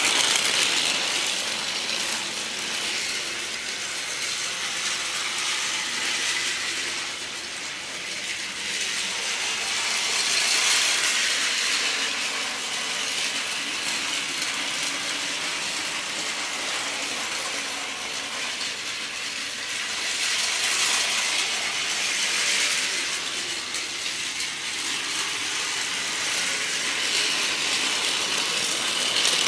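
Battery-powered Plarail toy train (Resort 21 model) running on plastic track: the steady whirr and rattle of its small motor, gears and wheels. It grows louder and fades about every ten seconds as it comes close and moves away.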